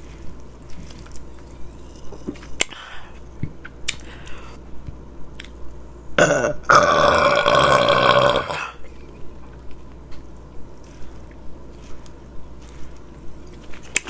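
A woman's long, loud burp lasting about two and a half seconds, starting a little past halfway.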